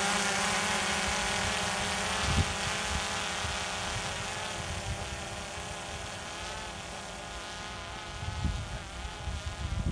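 Quadcopter drone's propellers buzzing as it climbs away under the load of a camera slung beneath it, the buzz fading steadily as it gains height. A low thump about two seconds in.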